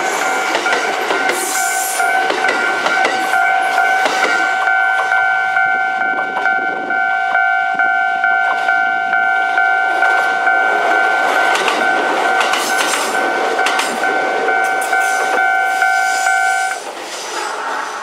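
A Japanese level crossing's warning bell rings steadily over the rumble and wheel clatter of a Kintetsu 5200-series and 1253-series express running through and pulling away. The bell cuts off suddenly about 17 seconds in as the crossing clears.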